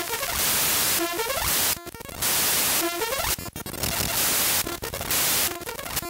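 Raw data of the Windows system file shell32.dll.mun played back as audio. Stretches of harsh static hiss alternate about every second with glitchy buzzing tones and rising chirps, with abrupt cuts between them.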